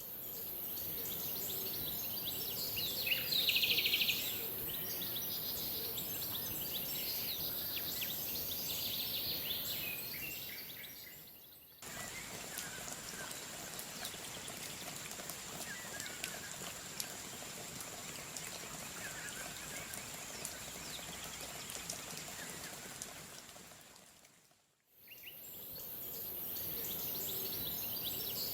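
Outdoor nature ambience: birds chirping over a steady high hiss. About twelve seconds in it cuts abruptly to a slightly quieter ambience with a thin steady high tone and faint chirps. That fades out near the end, and the first ambience returns.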